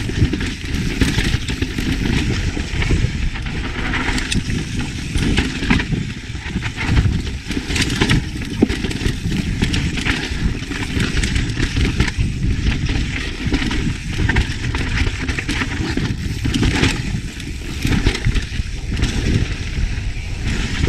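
Yeti SB150 full-suspension mountain bike descending a rough rocky trail: a steady rumble of wind on the camera microphone, with the constant rattle and clatter of tyres and frame over rock.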